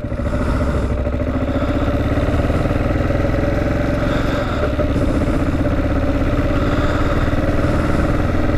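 2009 Kawasaki KLR650's single-cylinder engine running under way, its revs rising as the bike picks up speed at the start, then running steadily.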